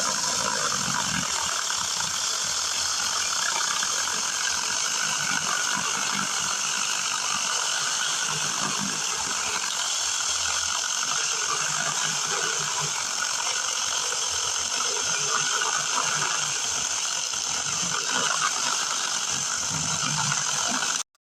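Taranzy 6-inch cordless mini chainsaw running and cutting through a piece of firewood, a steady chain sound that cuts off suddenly near the end.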